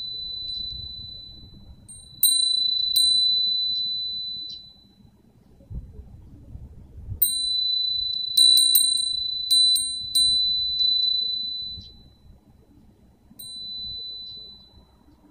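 Nanbu cast-iron wind chime rung by its clapper as the breeze swings its paper strip: a clear high ringing tone that sustains and slowly fades after each strike. It gives two strikes a couple of seconds in, a quick cluster of strikes from about the middle, and one last light strike near the end, over a faint low rumble of wind.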